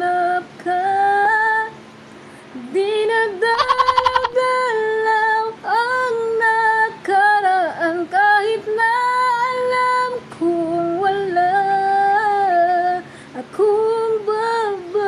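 A woman singing a slow melody, holding long notes that bend between pitches, with a couple of short pauses.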